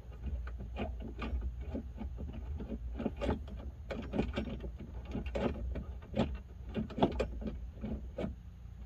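Bolt on a Jeep Wrangler's aluminum grab handle being tightened with a 3/16 hex tool: a run of irregular metallic clicks and taps, a few a second, over a steady low rumble.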